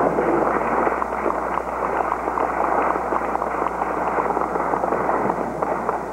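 Audience applauding, a dense patter of many hands clapping, with one person clapping close by; it dies down near the end.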